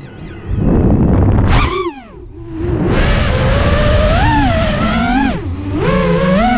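FPV quadcopter's motors whining, the pitch climbing and dropping with the throttle. Near the start there is a rush of noise, and about two seconds in the pitch falls sharply and the sound goes quieter before climbing again.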